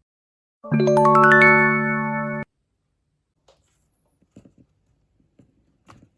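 A short electronic chime: a quick rising run of notes that piles up into a held chord and cuts off abruptly after under two seconds, followed by a few faint light clicks.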